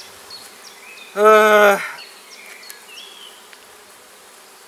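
Honeybees buzzing around an open hive, with one bee passing close for just under a second about a second in: a loud, steady buzz that drops back to the faint hum of the colony.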